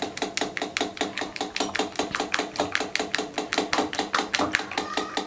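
Egg, milk and sugar pudding mixture being beaten by hand in a bowl, the utensil striking the bowl in a fast, even rhythm of about five clicks a second.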